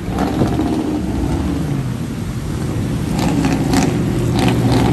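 Lifted pickup truck engines revving up and down as the trucks power through a mud bog, their tyres spinning and throwing mud and water. Several short, sharp bursts cut through the engine noise in the second half.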